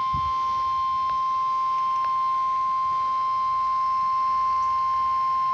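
NOAA Weather Radio 1050 Hz warning alarm tone, one steady unbroken beep, sent as the weekly test of the warning alarm.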